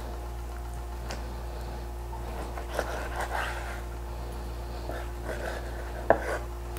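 Chef's knife cutting boneless chicken thighs on a wooden cutting board: a few soft cuts and light taps of the blade on the board, the sharpest about six seconds in, over a steady low hum.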